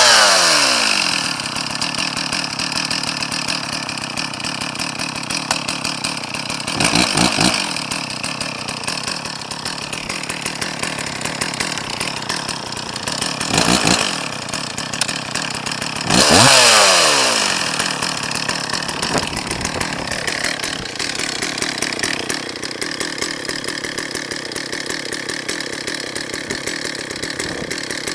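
Stihl 034 two-stroke chainsaw dropping from high revs to idle. It idles steadily, with three short blips of the throttle about seven, fourteen and sixteen seconds in, each winding back down to idle.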